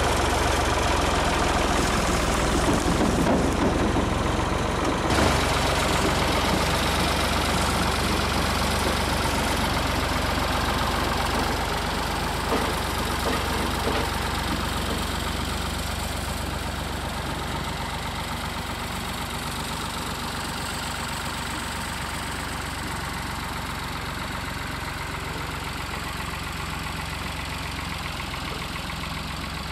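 Engine of a 1985 Chevy K10 pickup running steadily as the truck pulls away, slowly fading.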